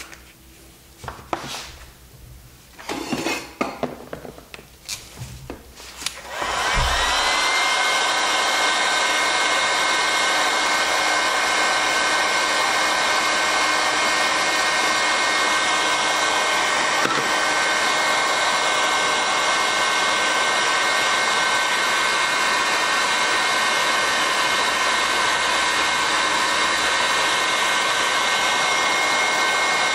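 A few seconds of light handling knocks and clicks as heat-shrink tubing is worked onto the cable. Then a heat gun switches on about six seconds in: its fan whine rises briefly and then blows steadily as it shrinks the tubing over the crimped cable lug.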